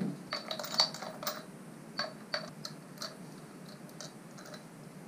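Irregular light metallic clicks and clinks of a Torx bit driver and small metal parts being handled at a hub-motor wheel while the disc brake rotor is swapped over, some with a short ring. They come thick in the first second and a half, then a few scattered ones up to about four and a half seconds in.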